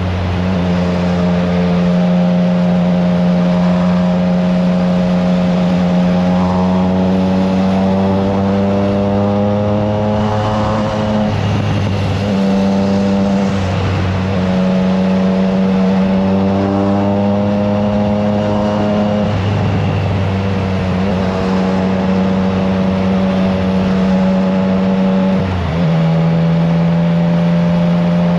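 Triumph Trident 660's 660 cc inline three-cylinder engine through an aftermarket FireTong exhaust, heard from on board while riding at steady revs. The note creeps slowly upward and briefly drops off and comes back about four times, with wind rushing over the microphone.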